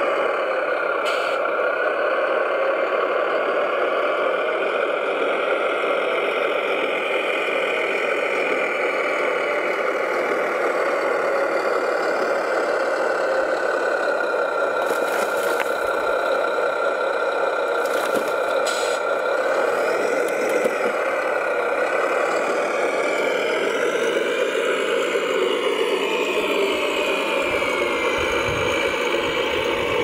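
Radio-controlled model construction machine running steadily, its motor noise holding a near-even pitch that sinks slightly in the last third, with a few faint clicks.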